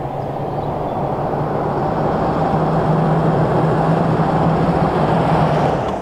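A motor vehicle driving, with a steady hum and road noise that slowly grow louder, then drop away sharply near the end.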